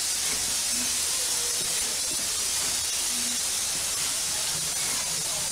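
Steam locomotive hissing steam steadily.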